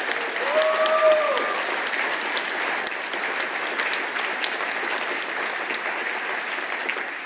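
Audience applauding steadily. Early on, one voice in the crowd calls out briefly.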